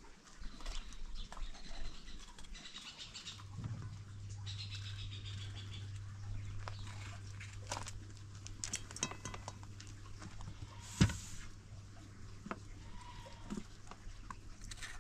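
Livestock bleating, mixed with scattered clicks and knocks; one sharp knock about eleven seconds in is the loudest sound. A low steady hum sets in about three and a half seconds in.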